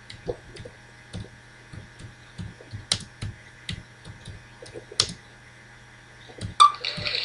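Computer keyboard and mouse in use: irregular soft keystrokes and clicks, with two sharper clicks about three and five seconds in. Just before the end, a brief tone sounds and a steady hiss begins.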